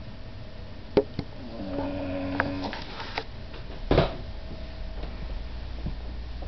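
An old beagle snoring: one drawn-out, pitched snore from about a second and a half in, with two sharp clicks just before it and a short sharp sound about four seconds in.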